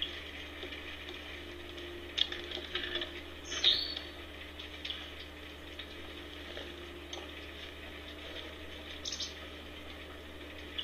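Light rustling and clattering of hands handling a plywood snowman cutout and its fabric outfit, over a steady background hiss. Louder crackles come about two and three and a half seconds in, with a smaller flurry near the end.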